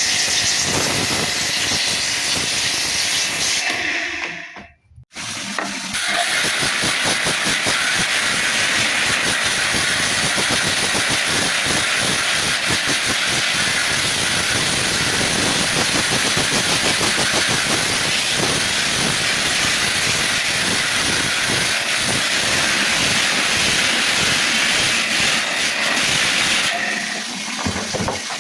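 A steady, loud hissing spray, as from a cleaning jet being worked over washing machine parts. It breaks off for under a second about five seconds in, then carries on.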